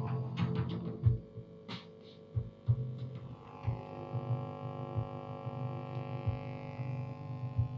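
Hybrid tube/transistor amplifier humming after the music stops: a steady mains hum with several overtones, broken by irregular low throbs. This is the unwanted hum fault the owner is showing.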